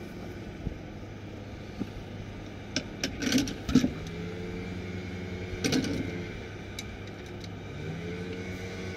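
A vehicle's motor running, its whine rising in pitch a few times. Sharp clicks and rustles close to the microphone come about three to four seconds in and again near six seconds.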